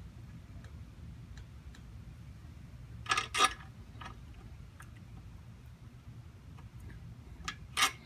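Small metal ticks and clinks from an Allen key turning and being repositioned on a trike's chain-adjuster bolt, with two sharp clinks about three seconds in and two more near the end.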